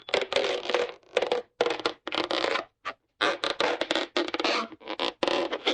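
A series of short, rough scraping creaks, roughly two a second, with brief gaps between them.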